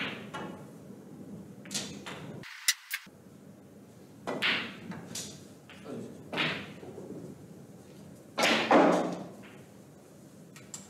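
Snooker balls clicking sharply: the cue strikes the cue ball and ball hits ball, three times in the first three seconds, as the last colours, pink and black, are potted. Several short bursts of noise follow, the loudest near the end.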